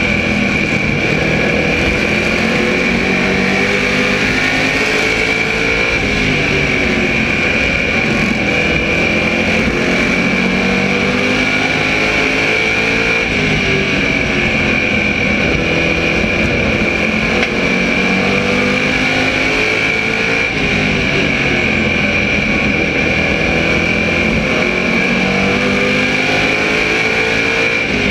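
SK Modified race car's V8 engine at racing speed, heard from the car's onboard camera. Its pitch climbs and drops again and again as it accelerates and lifts, with a steady high whine over it throughout.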